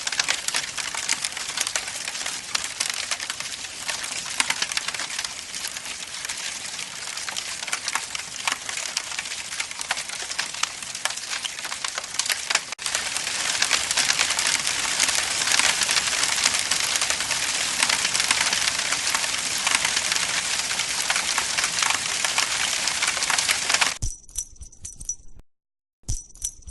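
Campfire crackling, a dense steady stream of small snaps and pops. Near the end the fire stops and a cat collar's bell jingles in a few short shakes.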